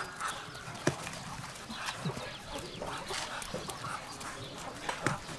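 Village animal noises, short grunting calls among clucking chickens, with two sharp slaps about a second in and near the end, plausibly rough pats on a pig's neck.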